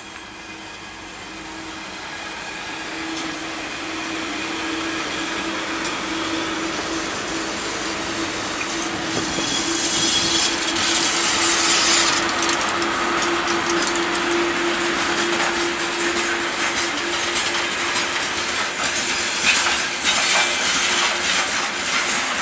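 VL11-series 3 kV DC electric freight locomotives at the head of a coal train, approaching and passing close by: a steady drone that grows louder as they near and is loudest as they pass about halfway through. It gives way to the rumble and clatter of the coal gondolas' wheels over the rails.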